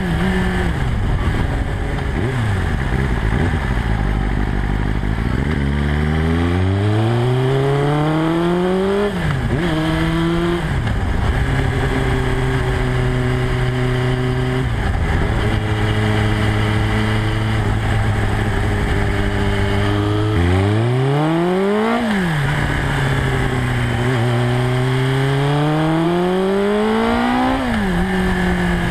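Suzuki Bandit 250's inline-four engine heard from an onboard camera while riding. The revs climb and drop back several times with gear changes and hold steady through a long cruising stretch in the middle. About two-thirds through they climb steeply, then fall away slowly as the bike slows.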